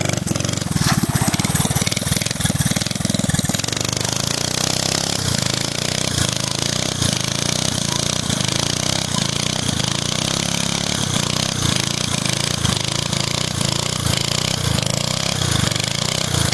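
Mini bike's 5 hp Briggs & Stratton single-cylinder engine running hard while the rear tire spins on asphalt in a burnout. The engine note drops about four seconds in and then wavers with regular dips as the tire spins.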